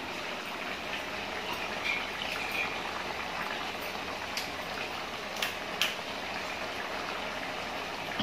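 Chicken gravy bubbling at a steady boil in an open aluminium pressure-cooker pot on a gas burner. Three or four brief sharp clicks come a little past the middle.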